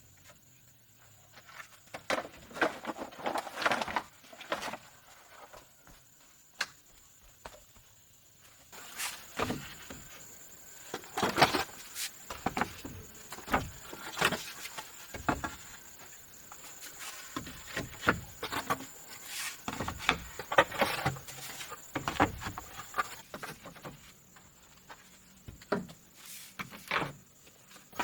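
Irregular knocks and rustling, some sharp and loud, with pauses between them, over a steady high-pitched insect drone.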